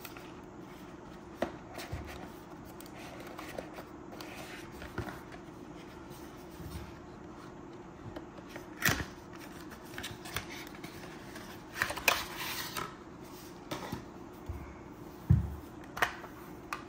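Cardboard packaging being handled: inner boxes sliding, rustling and tapping against each other, with scattered clicks and a dull knock about fifteen seconds in, over a steady low hum.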